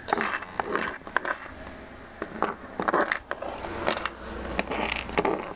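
Small plastic toy figures being handled on a wooden tabletop: irregular small clicks and knocks with some rubbing between them.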